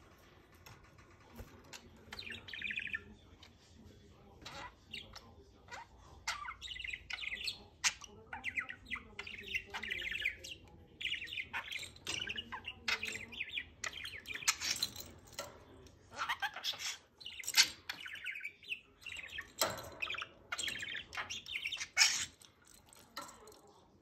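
Budgerigar chattering and warbling: a long, rapid run of chirps and squawks that starts about two seconds in.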